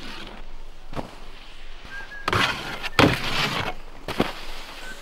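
Skis sliding along a snowpark box and hitting snow: rough scrapes and sharp knocks, the loudest about three seconds in, with a shorter hit a second later.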